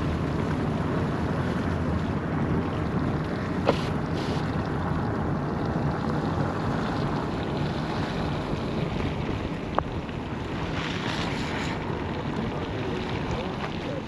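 Steady road and wind noise from a Honda Civic driving on a wet, snow-covered road, heard through the open window with wind buffeting the microphone. Two short clicks, a little under 4 seconds in and near 10 seconds.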